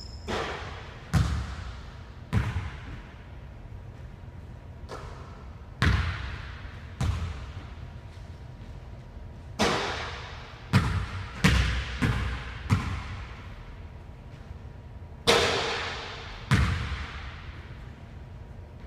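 Basketball shots and bounces in a large gym: about a dozen sharp thuds as the ball strikes the hoop and bounces on the hardwood floor, each followed by a hall echo. The thuds come in irregular clusters, with a quick run of four or five in the middle.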